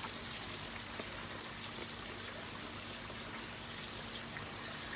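A steady, even hiss like trickling or running water, with a faint low hum beneath it.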